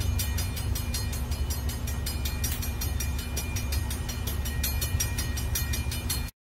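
Diesel freight locomotives passing, their engines giving a steady low drone and hum, with a rapid, even high ticking over it. The sound cuts off suddenly near the end.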